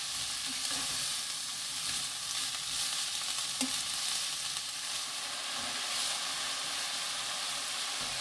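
Julienned balloon flower root (doraji) sizzling in hot oil in a nonstick frying pan while being stirred and tossed with wooden spatulas. A steady hiss, with a sharp knock of a spatula against the pan a little under four seconds in.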